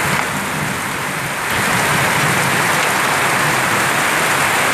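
Heavy rain pelting a corrugated zinc sheet roof and pouring off its eaves in a dense, steady rush that grows louder about a second and a half in.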